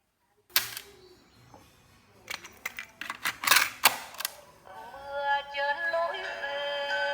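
Mechanical clicks and clatter from a Casio TP-50 cassette recorder's keys and tape mechanism: one sharp click, then a cluster of clicks. About two-thirds of the way in, music starts playing from the tape through the machine, a tune of steady, stepping tones.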